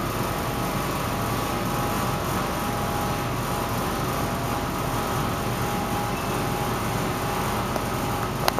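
Steady hum and hiss of room ventilation with a few faint steady tones, and a sharp click near the end.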